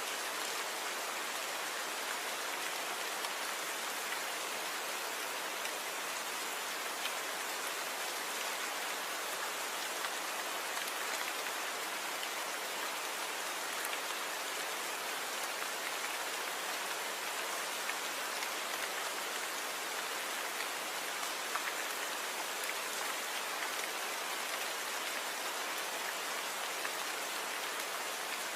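Rain falling steadily: an even hiss of many drops, with the odd sharper drop ticking out of it.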